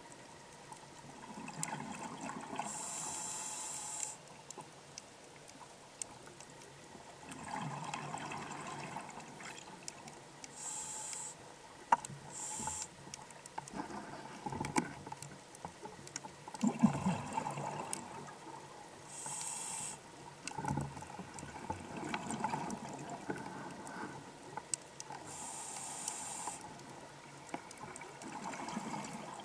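Scuba diver breathing through a regulator underwater: a short hiss on each inhale, then a longer gurgling rush of exhaled bubbles, repeating about every seven to eight seconds, with a few sharp clicks.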